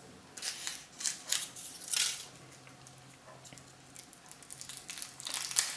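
Foil wrapper being peeled by hand off a Kinder Surprise chocolate egg, crinkling in short bursts: several in the first two seconds, then more near the end.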